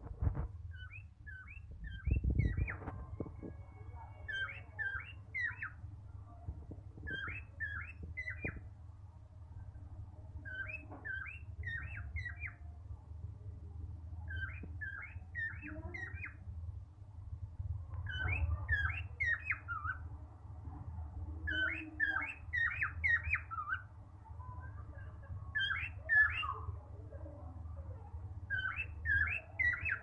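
Male cockatiel chirping in quick runs of three to five short, high chirps, a run every couple of seconds. Under it is a steady low rumble, with a couple of thumps in the first few seconds.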